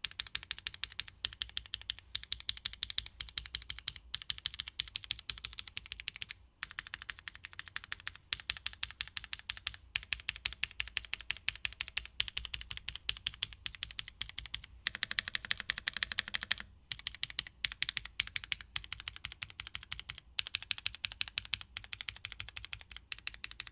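Fast, continuous typing on a Tofu65 2.0 65% mechanical keyboard with Gateron Blizzard tactile switches, a PC plate and ABS keycaps: a dense run of keystroke clacks with a couple of brief pauses.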